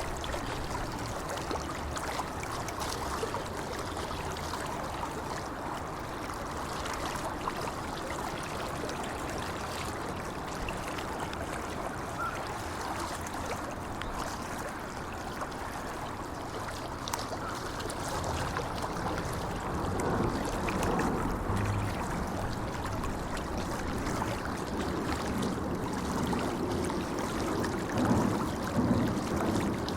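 Shallow brook flowing over stones: a steady rushing murmur, with more gurgling and splashing in the second half.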